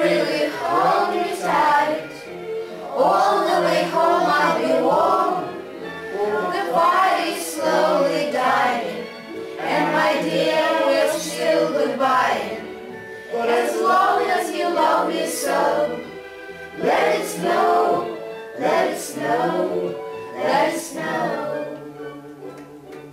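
Song with a group of voices singing over backing music, dropping away near the end.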